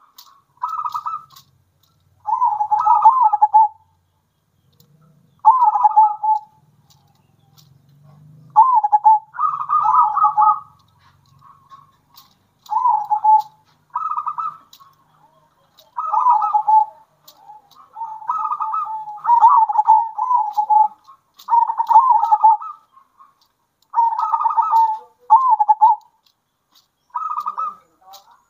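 Zebra doves (local perkutut) singing their rolling, bubbling coo, phrase after phrase of about a second each with short gaps between. More than one bird takes turns, and some phrases overlap.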